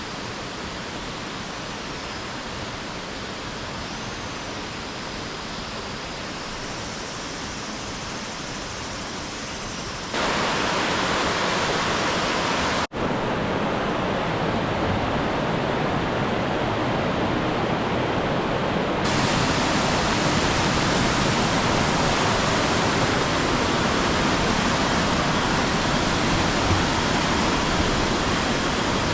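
Rushing water of a mountain stream or small waterfall, a steady loud rush that jumps abruptly louder and brighter about ten seconds in and again near twenty seconds, as separate recordings follow one another. Faint high chirps sound over it in the first few seconds.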